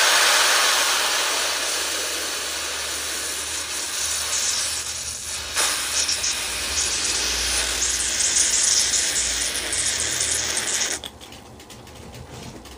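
Loud, steady hiss of a carbonated drink foaming up out of a glass bottle held in the mouth, cutting off abruptly about eleven seconds in.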